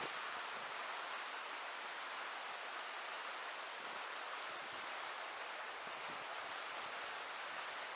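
Steady rushing of a flowing trout river's current.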